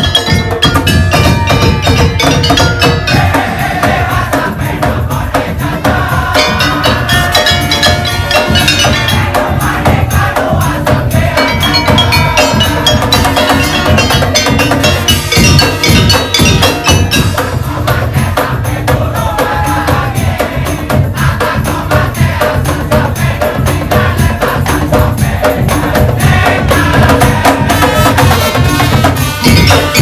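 Madurese daul (tong-tong) troupe playing live: steady, dense beating of large barrel drums, frame drums and tambourine, with a pitched melodic line sounding over the drums throughout.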